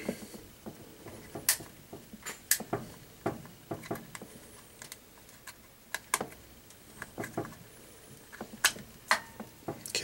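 Irregular sharp plastic clicks and scrapes, a dozen or so, as fingers push in the locking tabs of a washing machine's water level pressure switch and work it loose from its mount.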